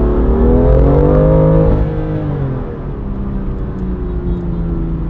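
BMW M2 (F87) turbocharged straight-six accelerating: the engine note rises for under two seconds, then drops away and settles into a steady lower drone while cruising.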